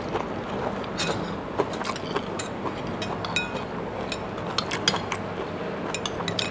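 Spoons clinking and tapping against ceramic bowls and plates as people eat, in short scattered clicks over a steady low hum.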